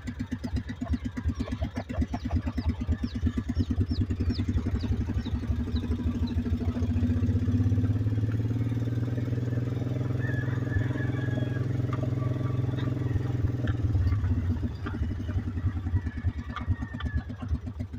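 Small engine of a utility vehicle running with a steady, fast pulse. It grows louder as the vehicle drives off under load from about seven seconds in, then eases back a few seconds before the end.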